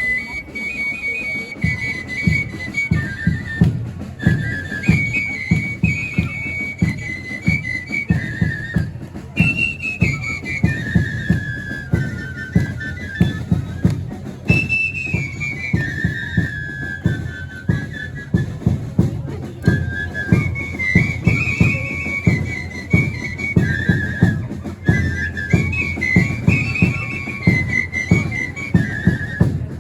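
Religious dance-band music: a high flute melody moving up and down in short steps over a steady, fast drumbeat.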